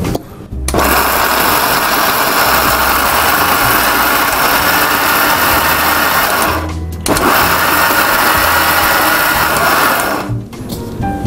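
Electric mixer grinder (mixie) grinding beetroot chutney in its small jar, run in two bursts: about six seconds, a brief stop, then about three more seconds before the motor cuts off near the end.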